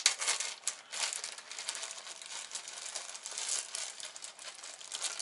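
A plastic parts bag crinkling as it is opened and handled, with small metal valve spring retainers rattling and clicking inside it.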